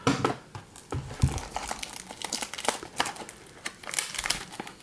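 Plastic wrapper of a baseball card pack crinkling as it is torn open and handled: a string of irregular crackles.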